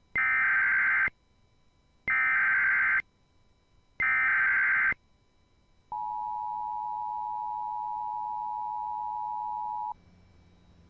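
Emergency Alert System SAME header: three warbling data bursts of about a second each, a second apart. They are followed by the two-tone EAS attention signal, held steady for about four seconds and quieter than the bursts. Together they mark the start of an EAS alert message.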